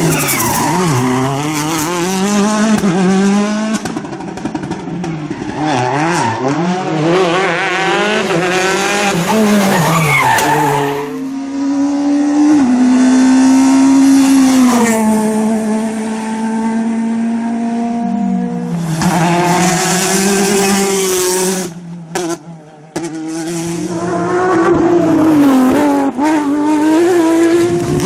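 Rally car engine driven hard at high revs. Its pitch climbs and falls again and again through gear changes and lifts off the throttle, holds high and nearly steady for several seconds midway, and briefly cuts about three-quarters of the way through.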